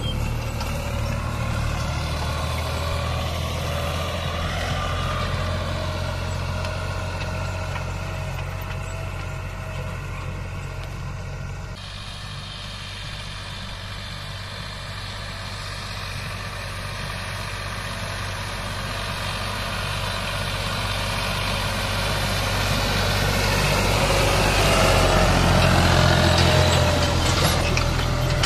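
Farm tractor's diesel engine running steadily under load as it pulls a disc harrow through ploughed soil. It grows fainter as the tractor moves off, then louder again when it is close near the end.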